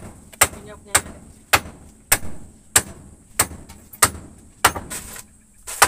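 Hammer blows driving nails into wood, about ten sharp strikes at a steady pace of roughly two a second.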